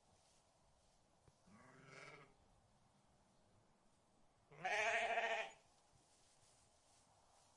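Rams bleating twice: a fainter bleat about a second and a half in, then a much louder bleat lasting about a second, some four and a half seconds in.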